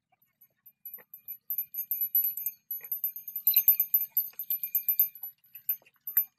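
Small bells on a bullock's harness jingling rapidly and irregularly as the animal shifts in its yoke, starting about a second in, with a few dull knocks of fired clay bricks being set onto the wooden cart.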